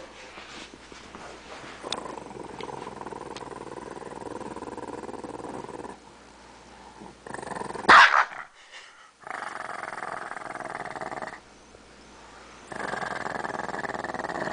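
Pekingese dog growling in several long, steady growls, guarding his bone as it is taken from him. There is a short, louder outburst about eight seconds in.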